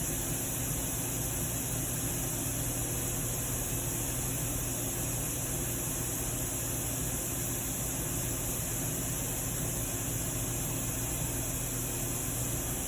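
Steady background hiss with a constant low hum underneath, unchanging throughout and with no distinct events.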